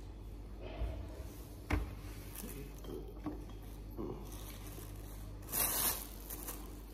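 Clear plastic bags rustling and crinkling as they are handled, with a sharp knock about two seconds in and a louder burst of crinkling near the end.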